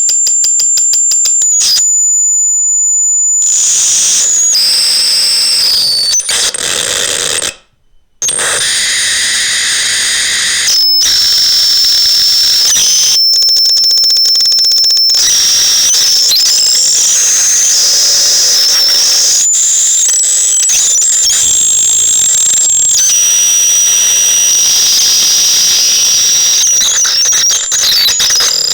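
Psychotron Mini electronic sound device putting out high-pitched electronic tones that hold, step and glide in pitch over a hiss of noise, starting with rapid clicking. It cuts out briefly about seven and a half seconds in.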